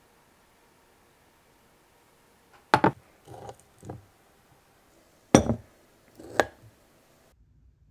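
Metal fork clinking against a small glass bowl while spearing kiwi pieces: a sharp clink about three seconds in, another about five and a half seconds in and a third a second later, with softer taps between them.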